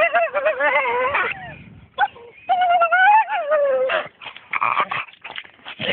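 Dog whining in long, wavering high-pitched cries: one at the start and a second about two and a half seconds in that falls in pitch as it ends, followed by shorter broken sounds.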